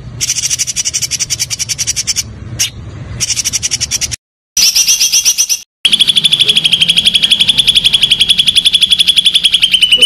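Songbird calls edited into a training track: fast trills of rapidly repeated high notes, in several phrases that stop abruptly at the cuts. The last phrase is a long, even trill of about a dozen notes a second.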